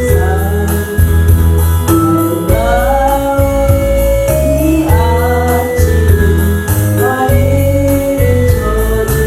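Gospel hymn: a woman singing a melody with vibrato over keyboard accompaniment with a steady bass beat.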